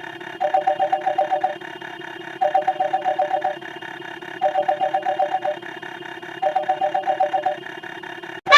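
Old-style telephone ringing sound effect: a rapid two-tone warbling ring in five bursts of about a second, two seconds apart, over a steady drone. Right at the end a loud elephant trumpeting effect cuts in.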